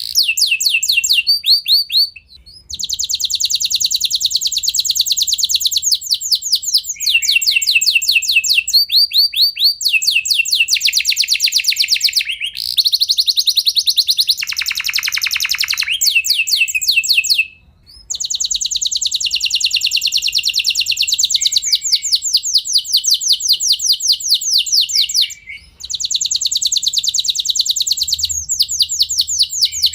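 Domestic canary singing long rolling trills, fast runs of repeated high notes that change speed and pitch from phrase to phrase, with a lower-pitched roll near the middle. The song breaks off briefly about three times.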